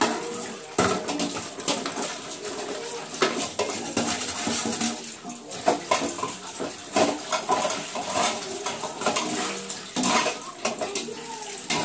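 Stainless steel pots, pans and utensils clanking against one another at irregular intervals as they are scrubbed and shifted about while dishwashing, with a scouring rasp between the knocks.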